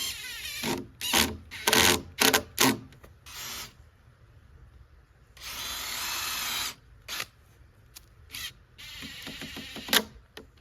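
Power drill run in a series of short trigger bursts, with a longer run of about a second in the middle and another near the end.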